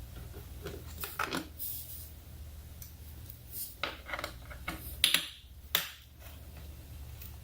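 Hand tools being handled, with scattered clicks, taps and short scrapes of a 10mm socket and ratchet, a few seconds apart and loudest about five seconds in. A faint steady low hum runs underneath.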